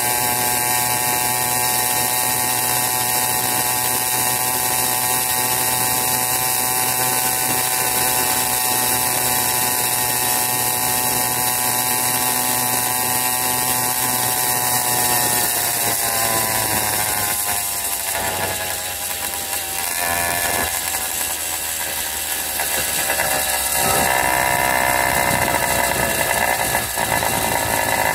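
Wildcat PK80 80cc two-stroke bicycle engine running at a steady buzzing cruise. About halfway through the revs fall away as the throttle comes off, then pick up again and grow louder near the end.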